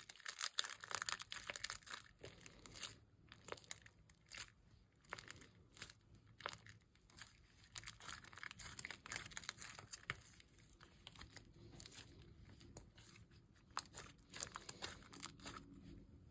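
Slime being kneaded and stretched by hand with freshly added lotion, giving irregular sticky crackles and clicks.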